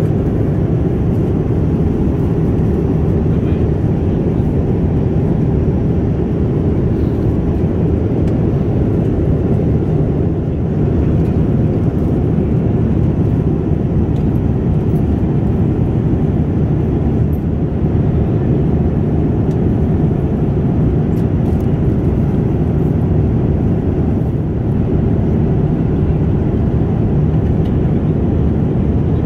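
Steady, loud low rumble of a Boeing 787-9's jet engines and rushing air, heard inside the passenger cabin.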